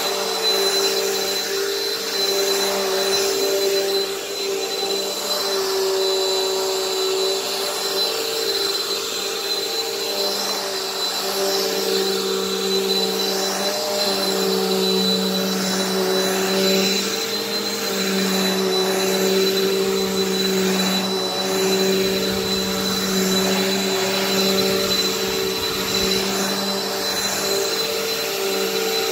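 Bissell PowerForce bagged upright vacuum cleaner running steadily: a motor hum that wavers slightly in pitch, with a thin, constant high whine and the rush of air over it.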